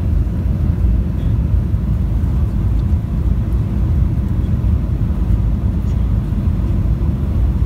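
Steady low rumble of a jet airliner's engines and rushing air, heard inside the cabin from a window seat during the landing approach with the flaps lowered.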